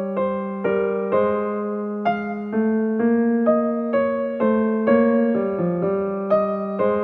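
Background music: an electric piano playing a gentle melody of separate notes, about two a second, over a held bass note.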